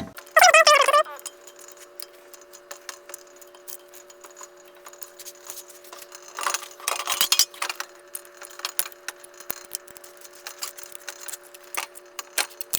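Metal tools and parts clinking and rattling in irregular small clicks, with a denser burst of rattling about seven seconds in, over a steady hum. A short voice-like sound comes about half a second in.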